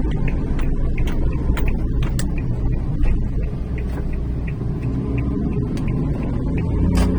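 Typhoon wind and heavy surf at the shore make a loud, steady low rumble, with scattered sharp ticks throughout.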